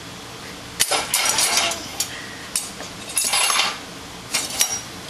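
Dishes and cutlery clinking and rattling in a dishwasher rack as children handle them, in several short bursts starting about a second in.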